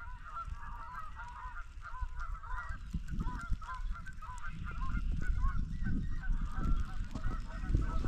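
A distant flock of birds chattering without pause, many short calls overlapping. A low rumbling noise grows louder in the second half.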